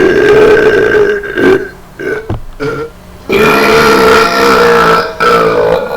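Loud, drawn-out belching: one belch lasting about a second and a half, then after a short pause a long, wavering belch starting about three seconds in and carrying on with only a brief break.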